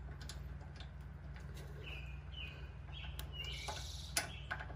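A few small metallic clicks and taps as a pin and spring are worked into a motorcycle footpeg adapter, with short bird chirps in the background about halfway through.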